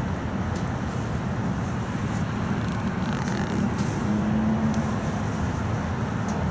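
A 71-619A tram running along its track, heard from inside the passenger cabin: a steady low rumble of the wheels on the rails and the running gear, with a few faint clicks. A brief low hum rises over it about four seconds in.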